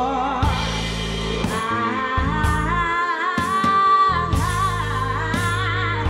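Live band music: a woman singing long held notes with vibrato, over bass guitar and drums.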